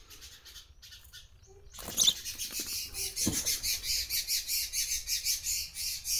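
A baby sparrow chirping: rapid, high-pitched cheeps repeating about four times a second, starting about two seconds in just after a short knock.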